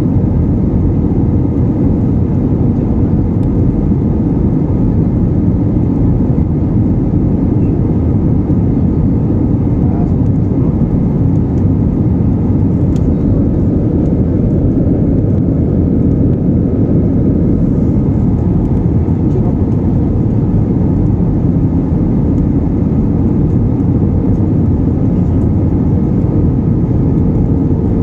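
Steady cabin noise of a jet airliner in flight, heard inside the cabin: a constant low rush of the engines and the airflow over the fuselage. A faint steady hum sits above it and grows a little stronger near the end.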